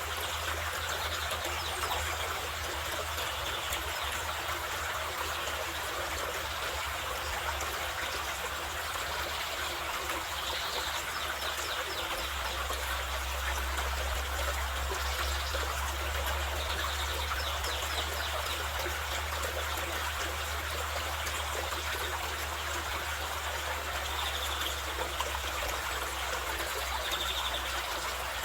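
Mountain river flowing steadily, a continuous even rushing of water.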